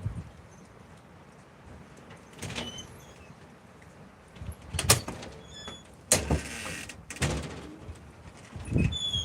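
Gusts of wind buffeting the microphone in repeated low rumbling surges, with a few short high chirps from small birds such as sparrows or finches in between.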